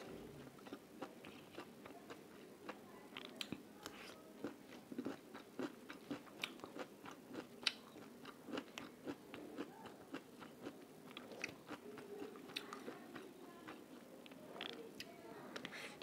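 A person chewing a mouthful of food close to a clip-on microphone: irregular wet smacks and clicks of the mouth, with a few sharper crunchy bites.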